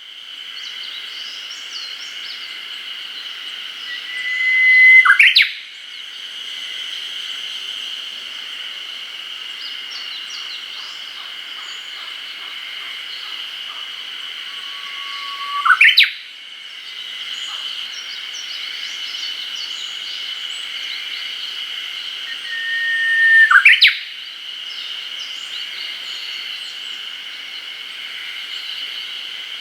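Japanese bush warbler singing its spring territorial song three times, each a long held whistle that breaks into a quick rising flourish (the "hoh-hokekyo"). A steady high-pitched drone of chorusing insects or frogs carries on underneath, with faint chirps.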